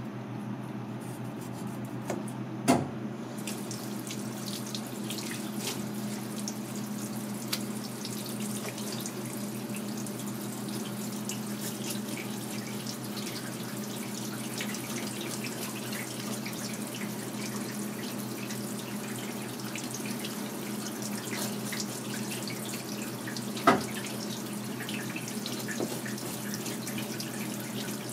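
Kitchen tap running steadily, the water splashing over a fish on a plastic cutting board. A sharp knock about three seconds in and another near the end.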